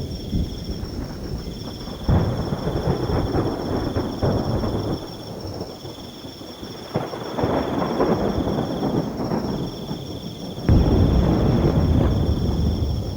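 Rain with thunder rumbling in waves, the loudest rumble setting in suddenly about eleven seconds in. Crickets trill steadily at a high pitch throughout, one trill pausing briefly every few seconds.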